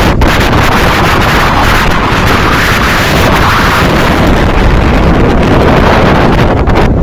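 Loud, steady wind buffeting a phone's microphone, a rumbling roar with no let-up.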